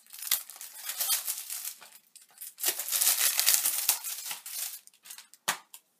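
Plastic shrink-wrap being torn and peeled off a Blu-ray case, crinkling and crackling in two long bouts. A sharp click comes near the end.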